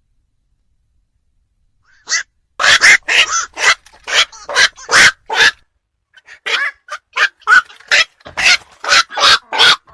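Night heron calling: after about two seconds of quiet, a fast run of short, harsh, barking calls, two or three a second, with a brief pause about halfway through.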